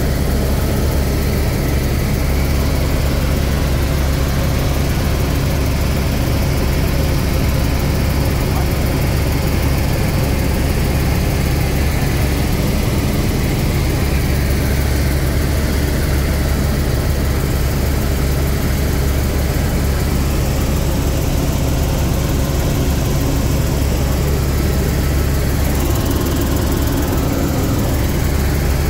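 Airbus H125 (AS350 B3 Écureuil) helicopter in flight, heard from inside the cabin: a loud, steady drone from the main rotor and the Arriel 2B turbine, with a deep low hum and a constant rushing noise over it.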